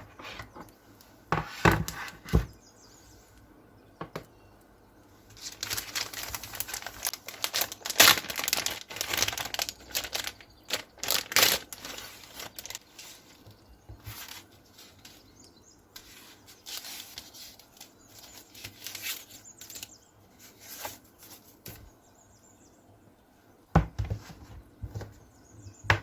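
Packaging being unwrapped by hand: wrapping crinkling and tearing in a long flurry through the middle, with a few sharp knocks and taps near the start and the end.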